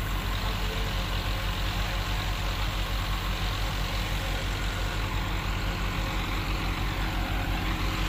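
Large diesel engine idling steadily.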